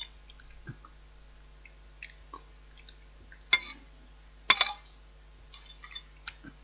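A spoon knocking and clinking against a bowl a few times, with small ticks between; the loudest knock comes about four and a half seconds in.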